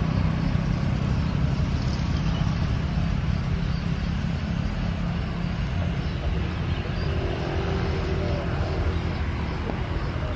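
Steady low engine rumble of road vehicles idling and passing close by.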